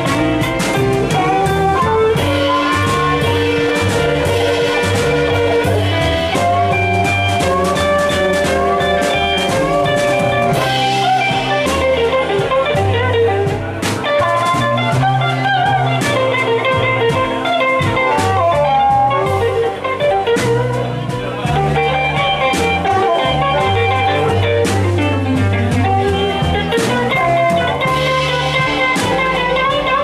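Live blues band playing an instrumental passage: a harmonica cupped against a handheld microphone solos over electric guitar, upright double bass and drum kit.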